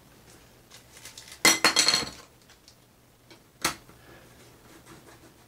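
A plastic desk grommet is pressed into a hole cut through the tiled desktop, making a quick cluster of clicks and clinks about a second and a half in, then a single sharp knock a couple of seconds later.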